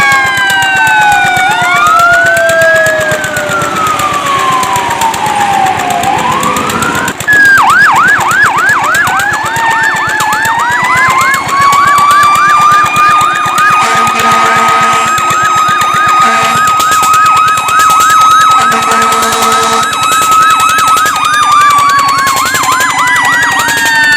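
Fire truck sirens sounding together: slow rising and falling wails, then after an abrupt change about seven seconds in, a fast yelp at about three sweeps a second over a long held high tone. A deeper horn sounds in a few short blasts near the middle.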